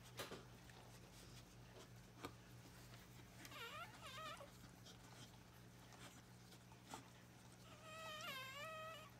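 Newborn Australian Shepherd puppy crying in thin, high, wavering squeals: two short cries a few seconds in, then one longer cry near the end.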